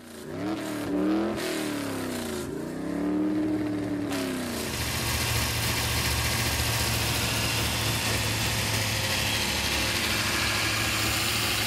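540-cubic-inch big block Chevrolet V8 on an engine dyno, revved in several blips that rise and fall over the first four seconds or so. It then runs steadily at a held speed under an even hiss.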